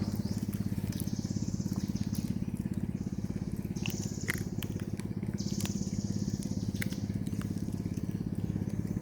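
A small engine running steadily at an even, fast pulse. Stretches of high buzzing about a second long come and go, with scattered sharp clicks.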